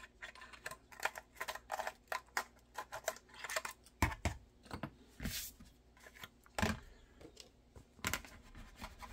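Small hand tool scraping and clicking inside a freshly drilled hole in a holster as the hole is cleaned out. Irregular handling clicks run throughout, with a few louder knocks of the holster and tool against the bench.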